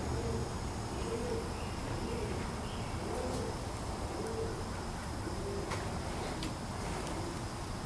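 Birds cooing over and over: soft, low calls about once a second. A few faint clicks come in the second half.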